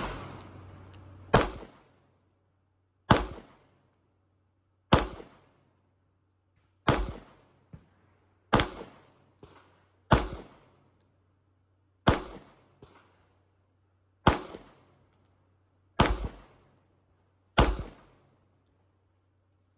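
PSA Dagger 9mm pistol fired in slow, aimed single shots: ten sharp reports, one every one and a half to two seconds, each dying away quickly, with a few fainter pops between some of them.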